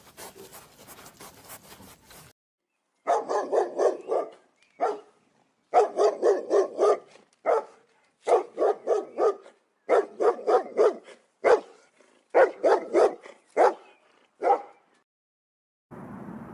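A dog barking in quick runs of five or six barks, about seven runs with short pauses between them, after a couple of seconds of faint clicking.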